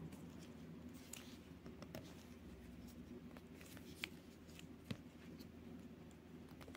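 Faint clicks and scrapes of fingers pressing a snap-on watch case back onto a vintage Invicta wristwatch case, with two slightly sharper clicks about four and five seconds in.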